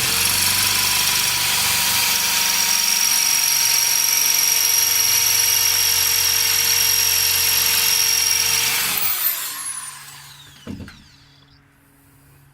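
Electric drill running steadily at full speed for about nine seconds as it drills out a stubborn ignition-switch security bolt, then spinning down with a falling whine; a single knock follows.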